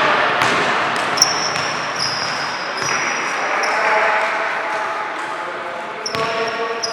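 Basketball game on an indoor court: a ball bouncing and sneakers squeaking in two stretches, one from about a second in and another near the end, over a steady hubbub of voices in a large hall.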